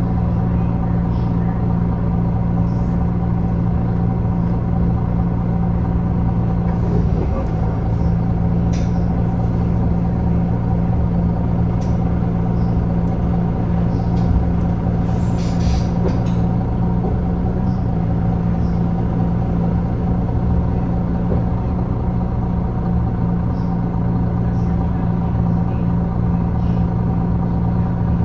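MAN Lion's City Hybrid bus's 10.5-litre MAN D2066 diesel engine running at a steady speed, a constant low hum that does not rise or fall.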